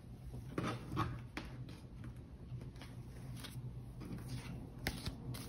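Faint, scattered taps and rustles of tarot cards being handled, a few near the start and more near the end, over a low steady hum.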